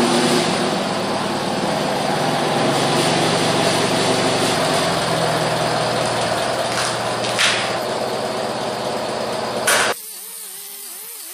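Forklift engine running steadily as the forklift lifts and carries a steel tank, with two brief louder noises in the later part. Near the end the engine sound cuts off and a small handheld grinder whirs against the tank's steel nameplate, its pitch wavering.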